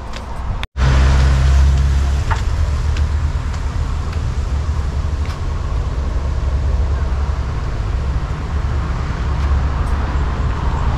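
Steady low rumble of a motor vehicle running, with road noise; it starts abruptly about a second in.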